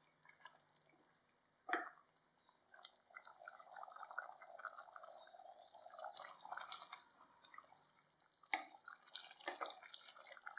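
Thick chana masala gravy bubbling and popping as it simmers in a pan, a continuous fine crackle of small bursting bubbles, with one sharper pop about two seconds in and two more near the end.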